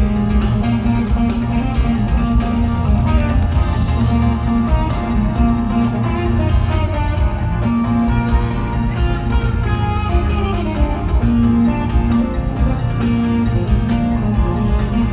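A rock band playing live in an instrumental stretch: electric guitar lines over bass and a steady beat.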